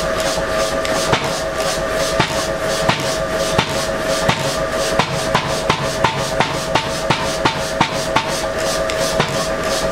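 A blacksmith's hammer forging hot iron on the anvil, a blow about every 0.7 s, quickening midway, some blows leaving a short metallic ring. A steady hum runs underneath.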